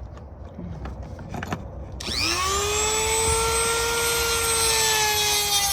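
Dremel rotary tool with a heavy-duty cutting wheel switched on about two seconds in: its pitch rises as it spins up, then holds a steady high whine. A few faint clicks of handling come before it.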